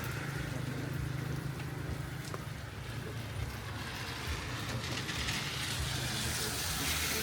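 A vehicle running steadily with a low hum, with a hissing noise that grows louder near the end.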